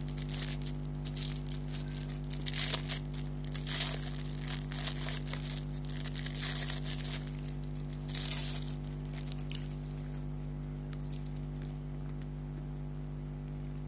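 Close-up crunching and chewing of sohan halwa, a dense, nutty Indian sweet, in irregular bursts for about nine seconds, then two small sharp clicks.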